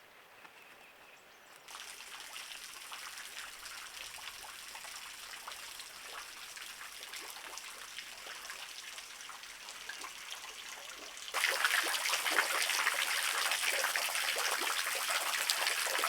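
A small waterfall trickling and splashing, a steady patter of water. It starts suddenly about two seconds in and jumps much louder about eleven seconds in.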